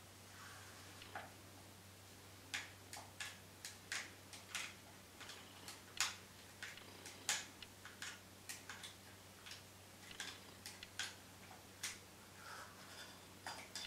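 Wooden chopsticks clicking lightly against a small bowl as food is picked up, in irregular sharp ticks about two a second.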